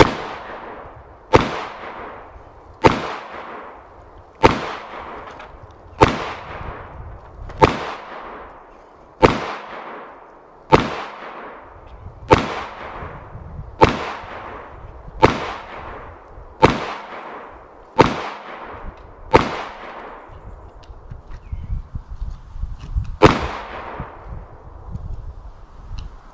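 Glock 19 9mm pistol fired in slow, aimed single shots, about one every second and a half. Each report trails off in a decaying echo. Fourteen shots come at an even pace, then after a pause of nearly four seconds one more follows near the end.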